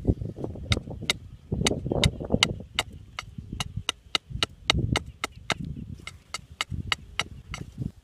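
Large knife blade chopping and notching a thin wooden stick: a quick series of sharp, crisp chops, about two to three a second, over rustling from handling the wood.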